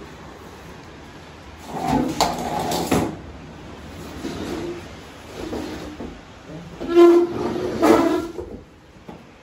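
Wicker patio furniture dragged across a tile floor, the legs scraping with a squealing tone: two loud bouts, about two seconds in and about seven seconds in, with lighter scrapes between.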